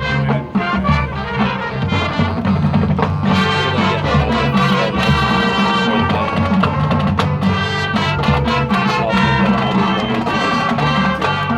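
High school marching band playing: brass carrying the tune over drumline percussion.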